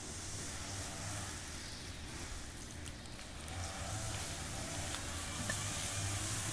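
Steady hiss of steam rising from a Fijian earth oven (lovo) as it is dug open, with a few faint scrapes and rustles from shovels and leaves.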